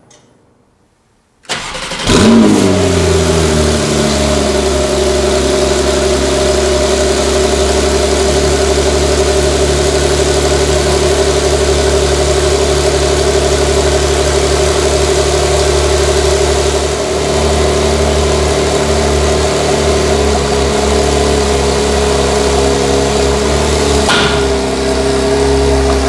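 Porsche 991.2 Carrera 4S's 3.0-litre twin-turbo flat-six cold-started: the starter cranks it briefly about a second and a half in, the engine catches with a flare whose pitch falls as it settles, then it holds a steady fast cold idle. Near the end the idle note changes slightly.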